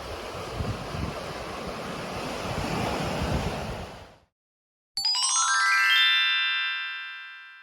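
Surf and wind buffeting the microphone for about four seconds, cutting off suddenly. After a short silence comes a quick rising run of bell-like chime notes, an edited transition sound, that rings on and fades away.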